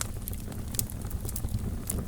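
Fire burning in a fireplace, crackling with scattered sharp pops over a steady low rumble of the flames.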